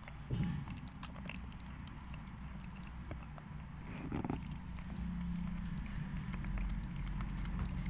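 Mother cat in labour tending her newborn kitten, with a short low sound just after the start and another about four seconds in, over a steady low hum and faint clicks.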